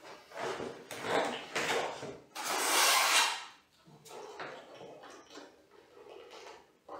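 Handling noise as cables and wiring are pulled and sorted inside a wooden shipping crate: irregular rubbing and scraping, the loudest a scrape lasting about a second, a little over two seconds in, then quieter rustling.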